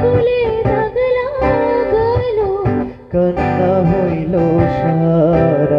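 Acoustic guitar strummed behind a Bengali folk song sung in turn by a woman and a man, the voice holding long, wavering, ornamented notes. The singing breaks off briefly about three seconds in, then the man's voice takes up the line.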